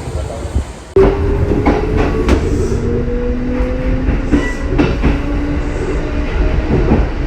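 Kintetsu 80000 series electric train running by, starting abruptly about a second in. Its traction motor whine rises slowly in pitch as it accelerates, and its wheels clack over rail joints.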